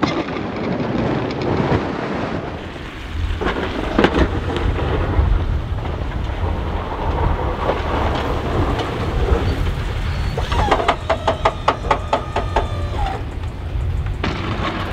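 A pickup-mounted snow plow at work in heavy, wet slush: a steady rumble of the truck and blade pushing snow, with wind buffeting the microphone. Past the middle there is a brief run of rapid, evenly spaced clicks.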